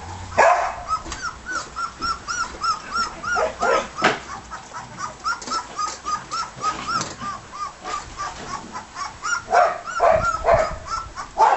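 Eighteen-day-old border collie puppies squeaking and whimpering in a rapid string of short high squeaks, about three a second, with a few louder, lower yelps near the start and again near the end.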